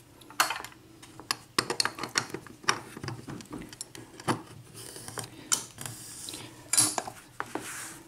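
Irregular small metal clicks and taps, with a couple of short scrapes near the end, from a Russwin six-pin cylinder lock and lock-picking tools being handled.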